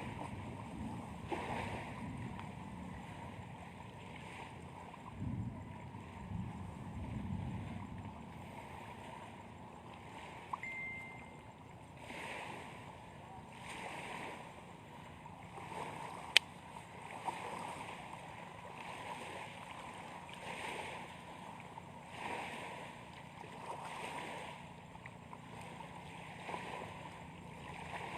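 Lake waves washing against the shore, swelling and falling about once a second, with wind on the microphone. One sharp click comes about sixteen seconds in.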